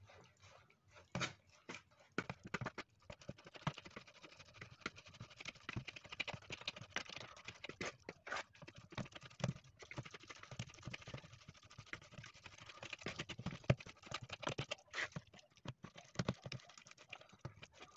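Metal fork clicking and scraping quickly and irregularly against a bowl as it mashes and stirs a wet mixture of canned tuna, oats and eggs.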